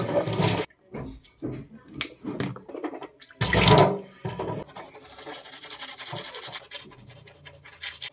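Toothbrush scrubbing teeth at a bathroom sink. A short loud burst of tap water comes about three and a half seconds in, then quicker, fainter brushing strokes follow.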